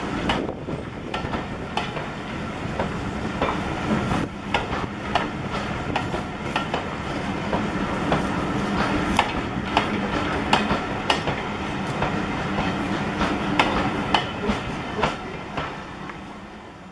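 Railway passenger coaches rolling past close by, their wheels rumbling and clicking irregularly over the rail joints. The sound fades near the end as the last coach goes by.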